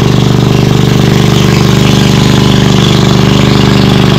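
An engine running loud and steady at an even speed, with no change in pitch.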